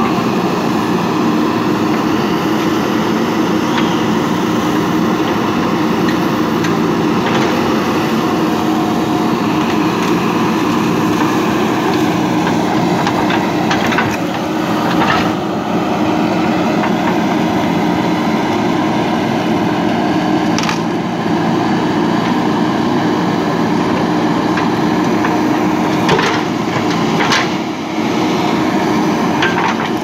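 JCB 3DX backhoe loader's diesel engine running steadily under load while the backhoe digs. Several sharp cracks and knocks from the bucket working through soil and woody roots come around the middle and again near the end.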